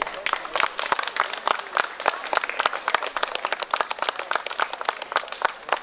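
Applause from a small crowd: many hands clapping quickly and unevenly, thinning out near the end.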